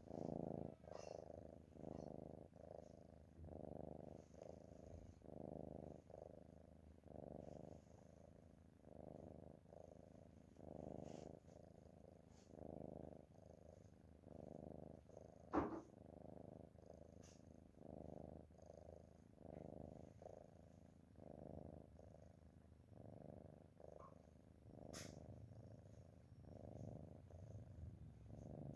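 Cat snoring softly in its sleep: a faint rasping, purr-like sound on each breath, about once a second. A single sharp click a little past halfway is the loudest moment.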